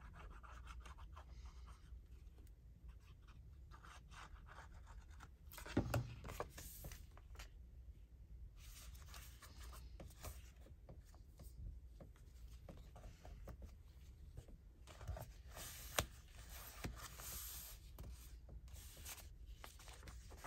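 Faint handling of paper pages: rustling and rubbing, with scattered light taps and one louder bump about six seconds in.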